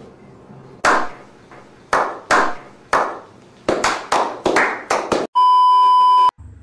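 A few people giving a slow clap in a reverberant space: the claps come about a second apart, then speed up. Near the end it cuts to a loud, steady TV colour-bar test-tone beep lasting about a second, which stops abruptly.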